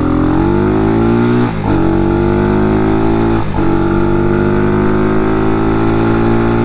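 CG250-type 230cc single-cylinder motorcycle engine accelerating, its revs climbing and dropping at two upshifts about a second and a half and three and a half seconds in, then pulling steadily in the higher gear. It breathes through the stock exhaust, which the rider thinks is restrictive.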